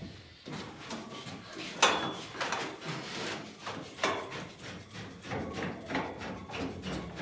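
A run of irregular wooden knocks and scrapes, the loudest about two seconds in: MDF boards being handled and fitted into a cable tray.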